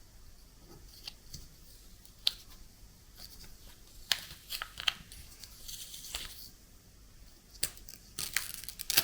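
Washi tape being handled and torn against the edge of a 3D-printed plastic tape cutter: sharp clicks and short rasping tears, the biggest about four seconds in and again near the end.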